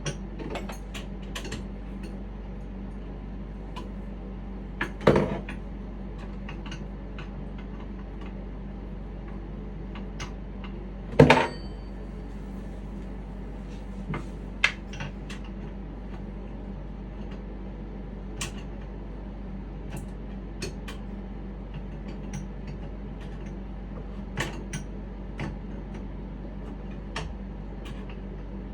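Scattered light clicks and knocks of plumbing fittings, nuts and washers, being handled and fitted onto bathroom sink pipework, with two louder knocks, one about five seconds in and one about eleven seconds in, over a steady low hum.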